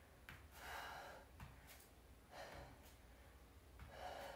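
Faint breathing of a woman under exertion: three or four short exhales about a second and a half apart while she holds a reverse plank and kicks her legs.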